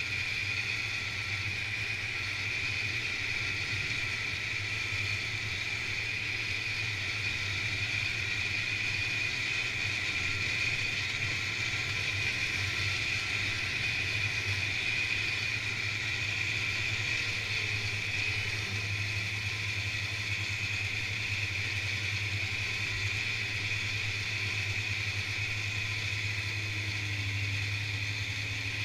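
Snowmobile engine and track running steadily while the sled cruises along a packed trail, its note holding even with no big revs or stops.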